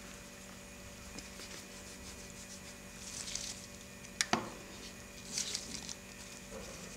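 Red lipstick smeared across a glossy paper page, soft rubbing and scratching strokes with two sharp taps a little past the middle, over a faint steady hum.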